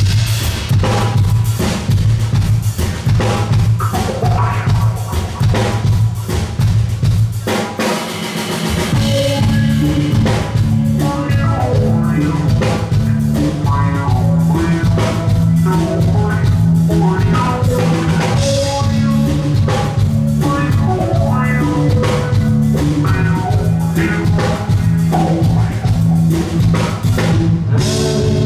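Live rock band playing a song's instrumental intro: a drum kit keeps a steady beat with snare and bass drum over bass guitar and electric guitar. The low end drops out briefly about eight seconds in, then the bass comes back with a new pattern.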